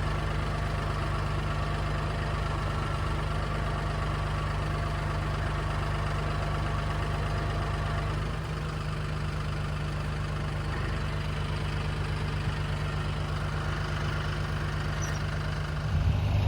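Tractor engine running at a steady speed, with a slight drop in level about halfway through.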